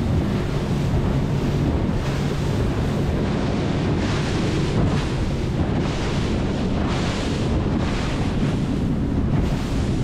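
Inflatable motorboat running at speed through choppy sea: a steady outboard-motor hum under heavy wind buffeting on the microphone, with water rushing and splashing along the hull.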